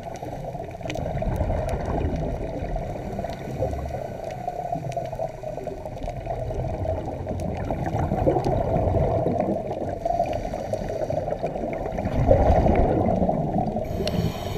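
Muffled underwater sound of scuba diving: a steady water rush with swelling gurgles of a diver's exhaled regulator bubbles, the strongest near the end, and faint scattered clicks.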